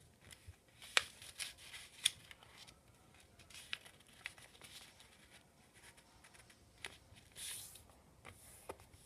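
A sheet of paper being folded and creased by hand: faint scattered crinkles and rustles, with the sharpest crackles about one and two seconds in.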